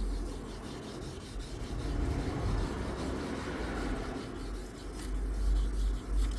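Fine-grit sandpaper rubbing on a car's painted body panel, wet-sanding to take out scratches, as a continuous rubbing sound.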